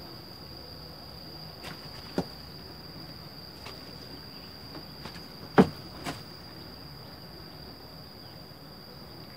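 Insects droning on one steady high note from the vegetation around the reservoir. A few short sharp knocks sound over it, about two seconds in and again a little over halfway through, where the loudest one is followed closely by another.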